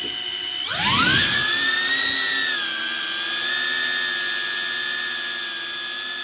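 DJI Avata FPV drone's propellers whining: spinning low at first, then about a second in a sharp rising whine as the throttle comes up for takeoff, settling into a steady, loud, high-pitched whine.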